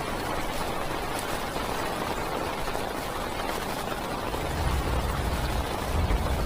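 Heavy rain drumming steadily on a parked car, heard from inside the cabin. About two-thirds of the way through a low rumble of distant thunder swells in underneath.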